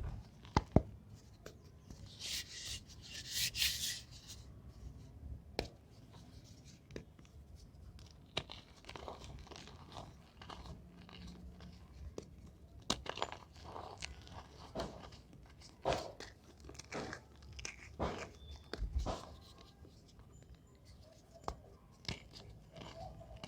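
Reformed gym chalk being crushed and crumbled, giving sharp, crunchy snaps at irregular intervals. About two seconds in there is a longer, hissing crumble of dusty chalk.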